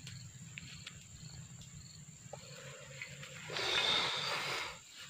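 A man exhaling cigarette smoke: a breathy hiss lasting about a second, starting about three and a half seconds in, over a faint steady background.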